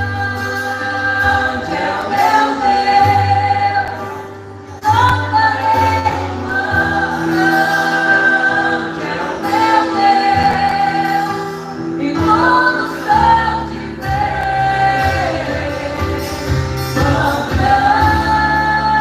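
A gospel worship band playing and singing, with a lead voice and backing singers holding long sung notes over bass and keyboard accompaniment.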